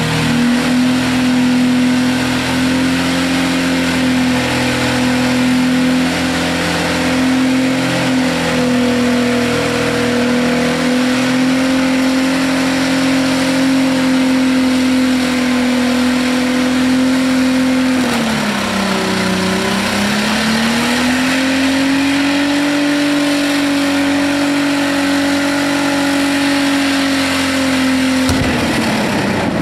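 Holden VS Commodore wagon's V6 engine held at steady high revs during a burnout, rear tyres spinning. The revs dip briefly about two-thirds of the way through and climb back, then the engine note drops away near the end.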